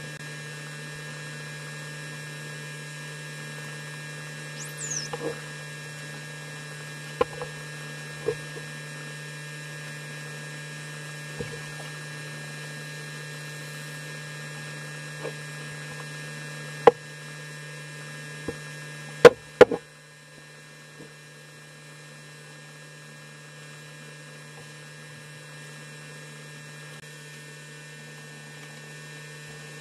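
A steady low electrical hum with a few fainter steady tones above it, broken by scattered sharp clicks, the loudest a pair about two-thirds of the way through. One brief high whistle falls in pitch a few seconds in.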